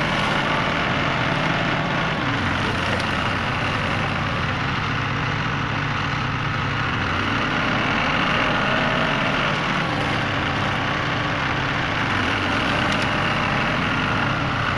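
Old Case IH loader tractor's engine running steadily while its front bucket works into brush.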